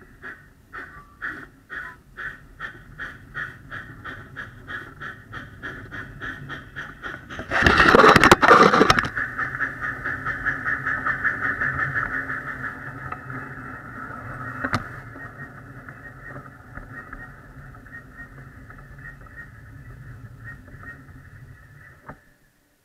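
Backyard ride-on miniature train running on its track: a rhythmic clicking that speeds up as it gathers pace, a loud rushing burst about a third of the way in, then a steady running sound that fades and cuts off as the train stops near the end.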